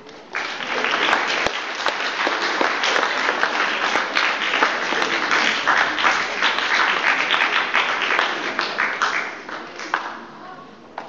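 Audience applauding, beginning about half a second in and dying away near the end.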